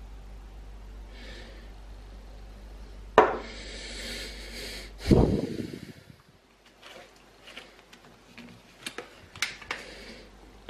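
Kitchen handling sounds: a sharp click about three seconds in, a loud low thump about two seconds later, then several light clicks and taps as a peanut butter jar and a plate of toast are handled on a counter. A steady low hum stops just after the thump.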